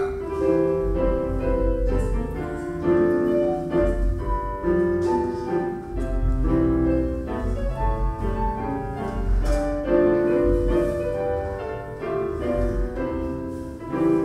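Piano music: a melody of held notes over a pulsing bass line.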